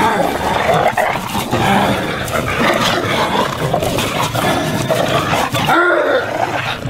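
Several pit bulls vocalizing with hardly a pause as they wrestle and tug at a man in rough play, dipping briefly about six seconds in.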